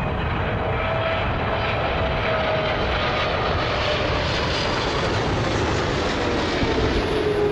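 Airliner's engines running loud as the plane passes close overhead: a steady roar with a whine that slides slowly down in pitch.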